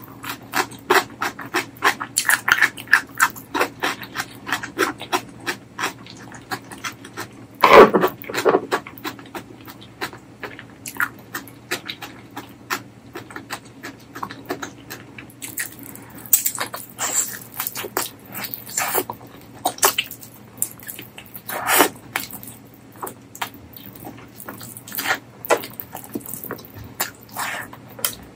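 Close-miked eating sounds: wet chewing and mouth clicks of someone eating spicy mutton curry with rice, in a quick uneven patter, with one louder mouth sound about eight seconds in.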